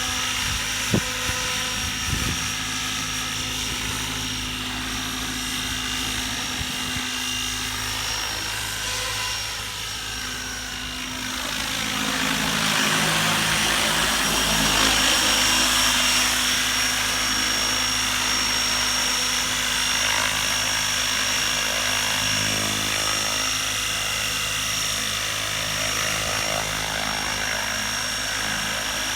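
12-cell electric radio-controlled helicopter flying, its motor and gears whining steadily over the whoosh of the rotor blades. About twelve seconds in the sound sweeps and grows louder, then stays so.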